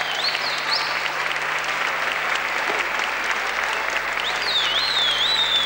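Audience applauding with steady clapping. A high, wavering tone sounds over it for the first second and again near the end.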